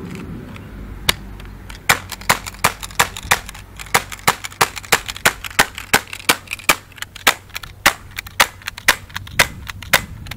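CO2-powered HK USP airsoft pistol firing 6 mm pellets in rapid semi-automatic shots, each a sharp crack: a single shot about a second in, then a steady run of about three shots a second until near the end.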